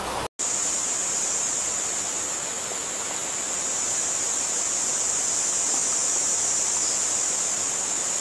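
A steady rushing hiss, strongest in a high band, that cuts out for a split second just after the start and then runs on evenly.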